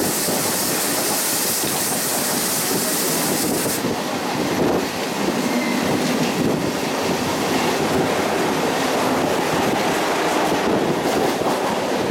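Running noise of a moving Mumbai suburban train heard from aboard, with the clickety-clack of wheels on the rails, as a Western Railway passenger train passes close on the next track. A strong rushing hiss drops away about four seconds in.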